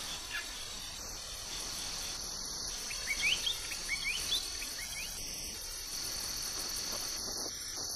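Insect chorus, a steady high trill, with a few short rising chirps in the middle.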